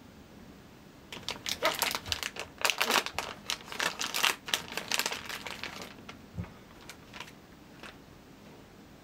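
Plastic packaging of a block of bacon crinkling and rustling as hands open it and pull the bacon out, starting about a second in and lasting about five seconds, followed by a few light taps.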